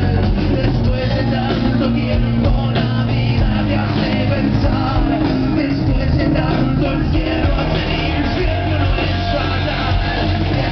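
Live rock band playing loud and continuously through a festival sound system, with singing over the band.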